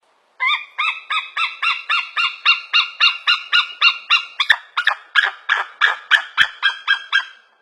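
Eagle calling: a fast, even series of short, high piping notes, about three and a half a second, kept up for about seven seconds.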